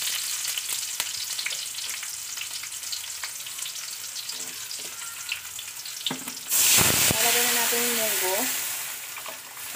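Garlic and onion sizzling in hot oil in a wok, with a wooden spatula clicking and scraping against the metal. About six and a half seconds in, mung bean broth is poured in and sets off a sudden loud hiss that slowly dies down.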